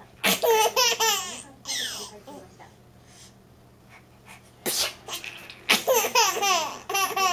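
A sneeze, then an 8-month-old baby's high-pitched bursts of laughter. This happens twice, the second sneeze coming nearly five seconds in and setting off another run of laughing.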